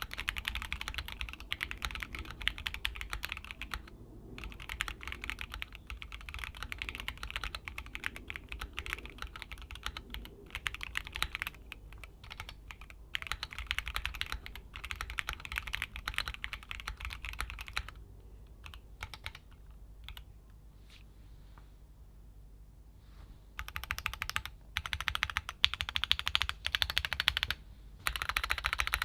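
Fast typing on a Keychron Q1 Pro aluminium mechanical keyboard, in runs of rapid keystrokes broken by short pauses. In the middle it thins to a few scattered single keypresses, then picks up again, louder and denser, near the end.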